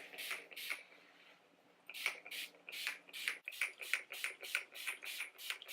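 Hand spray bottle misting hair in quick squirts of hiss, about four a second, with a pause of about a second near the start.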